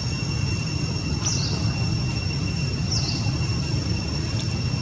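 Outdoor ambience: a steady low rumble under a thin, steady high whine, with a short, high, falling chirp twice, about a second and a half apart.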